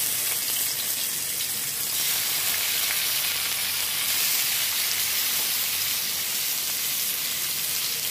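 Turmeric-marinated rohu (rui) fish pieces sizzling in hot oil in a kadai as they are laid in one after another. It is a steady frying hiss that grows brighter and louder about two seconds in.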